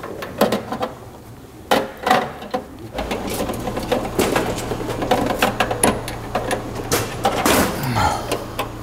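Rapid metallic clicking and clinking of a ratchet wrench and socket working a spark plug out of a VW Beetle engine. A steady low hum comes in about three seconds in.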